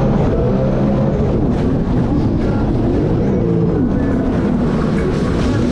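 Jet ski engine running at speed, its pitch rising and falling several times as the throttle changes, over a steady low rush.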